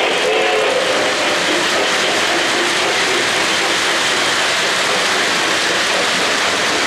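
O-gauge model freight cars rolling past on three-rail track: a steady rushing clatter of metal wheels on the rails. A steam-whistle sound fades out in the first second.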